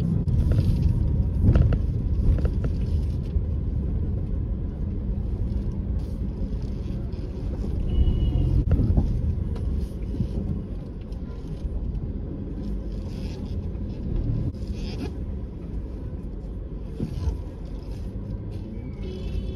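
A car driving slowly, with a steady low engine and road rumble. A brief high beep comes about eight seconds in and another near the end.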